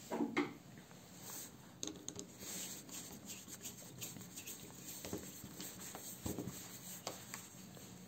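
Faint scratching and rubbing of a Phillips screwdriver turning a screw into a cardboard panel, with scattered small clicks and a brief louder sound at the start.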